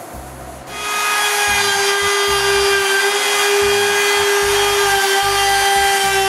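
A handheld router starts about a second in and runs at speed with a steady high whine, most likely trimming the freshly glued formica laminate flush.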